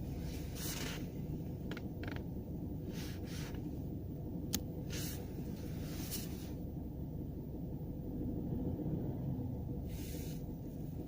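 Low, steady rumble of a car with a 1.4 TSI CAXA petrol engine heard from inside the cabin. Short bursts of higher noise come and go, with a sharp click about four and a half seconds in; the owner is recording an unexplained extraneous noise in this car.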